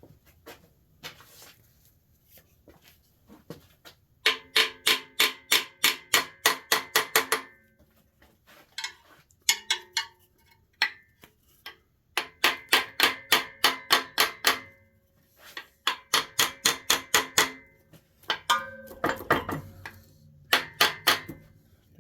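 Work on the engine teardown with a metal tool: runs of rapid, evenly spaced metallic clicks, about six a second, each with the same ringing tone, in bursts of one to three seconds with short pauses between.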